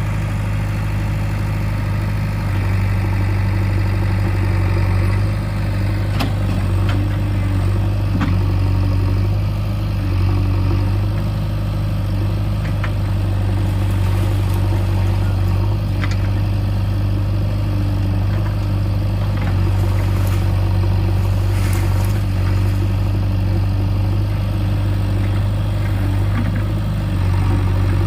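JCB 3DX backhoe loader's four-cylinder diesel engine running steadily, with a few light knocks or clanks here and there.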